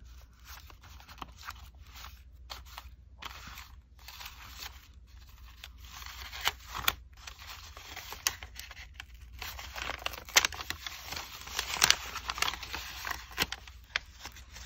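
Paper being handled: cut paper pieces and book pages rustling, sliding and crinkling in irregular strokes, busier and louder in the second half, with a few sharp clicks.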